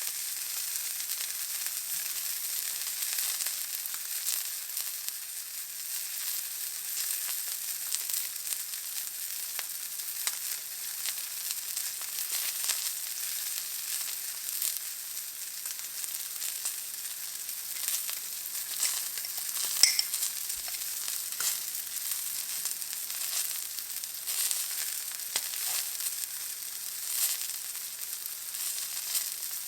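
Steak searing in a hot pan: a steady sizzle with frequent small crackles and spits of fat, and one sharper pop about two-thirds of the way through.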